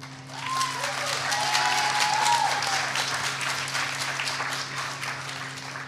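Convention audience applauding, swelling over the first couple of seconds and then tapering off, with a few brief calls from voices over the clapping.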